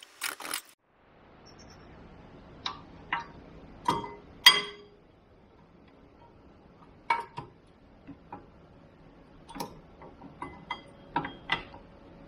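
A short burst of ratchet clicking at the start, then a series of separate sharp metallic clinks and knocks with a slight ring, the loudest about four and a half seconds in: steel brake pads and their clips knocking against the front brake caliper carrier as they are worked out by hand.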